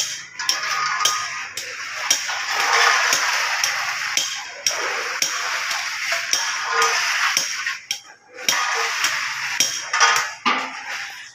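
Repeated sharp metallic knocks and clanks from work on a steel streetlight pole as it is raised and fitted.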